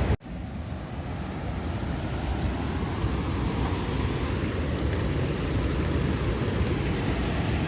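Steady rush of fast-flowing, rain-swollen river water, starting abruptly just after a brief silent gap near the start, with some wind on the microphone.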